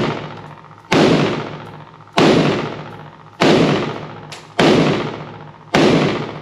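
IWI Galil ACE pistol in 7.62x51 NATO (.308) fired five times in steady semi-automatic shots, about one every 1.2 seconds. Each loud shot rings out in a long echo off the indoor range's walls.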